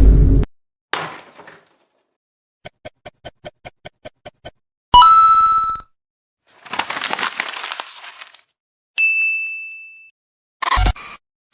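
A string of separate short stock sound effects: a quick run of about a dozen clicks, a sharp hit that rings on, a noisy crash like something breaking, and a clear ding that fades.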